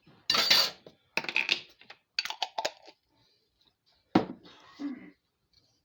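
A spoon scooping sliced olives and scraping against a bowl of macaroni salad in a few separate strokes, with a sharper knock about four seconds in.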